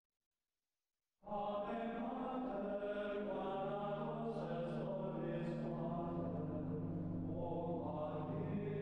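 Choral chant music starts about a second in, out of silence, with long held sung notes; a steady low drone joins about halfway through.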